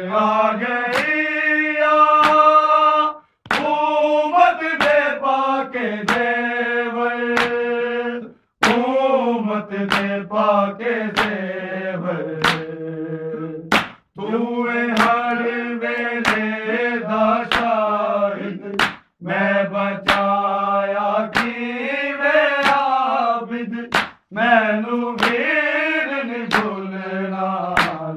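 Men reciting a Punjabi noha, a lament chanted in long held lines with short breaks between them. Sharp slaps at a steady beat run under the voices: matam, the hands striking the chest.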